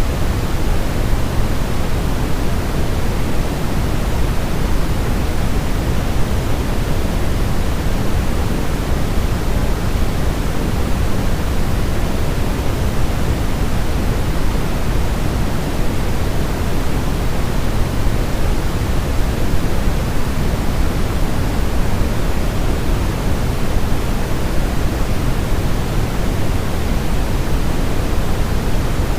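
Steady, unchanging white noise for lulling a baby to sleep, weighted toward the low end so that it sounds like a deep, even rush rather than a bright hiss.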